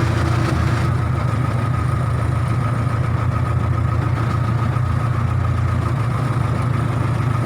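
Case 580K backhoe loader's four-cylinder diesel engine running steadily at a low idle-like drone, with a thin steady whine above it; a hissy rush on top eases off about a second in.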